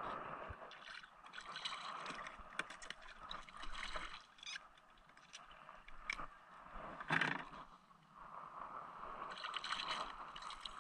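Handline being hauled in and wound onto a spool in a plastic kayak: faint scraping and rustling of line and hands with small knocks, water lapping at the hull, and a louder knock about seven seconds in.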